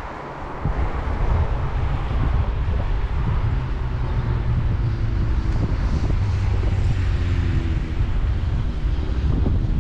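Wind buffeting an action camera's microphone while cycling, a steady low rumble. A faint steady drone joins in the background from about halfway.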